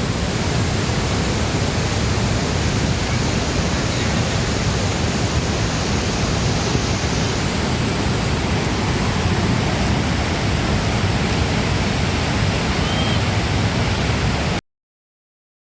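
Waterfall swollen with rainwater pouring steadily, a dense even rush, until it cuts off suddenly near the end.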